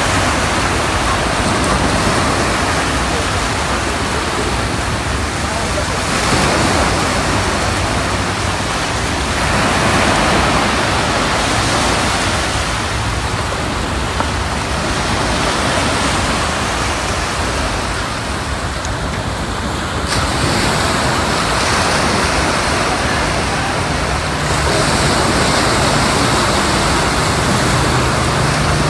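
Surf washing onto a sandy beach, mixed with wind rushing over the microphone: a loud, steady roar of noise that swells and eases every few seconds. About three-quarters of the way through a low steady hum joins in.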